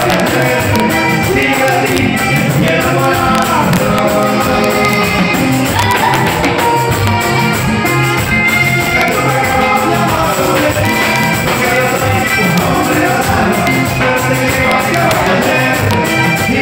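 Latin dance music from a band, with singing over a steady bass beat.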